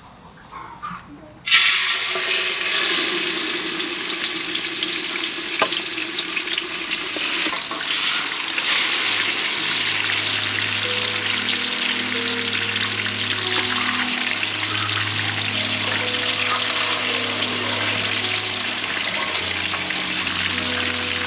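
Marinated chicken drumsticks frying in hot oil in a wok: a sizzle that starts suddenly about a second and a half in, as the chicken goes into the oil, then stays steady. Soft background music with held low notes comes in about halfway.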